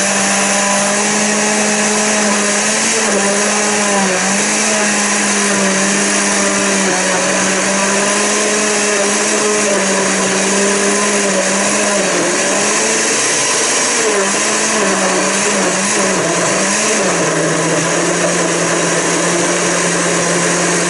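Countertop jug blender running continuously, blending banana, kiwi, milk and ice cream into a smoothie. It is a steady motor whine whose pitch dips briefly a few times.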